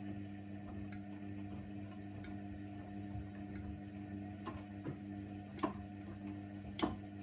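Hoover Nextra 6 washing machine running a wash, its motor humming steadily while the drum turns, with irregular light clicks and knocks from the load inside; two louder knocks come near the end.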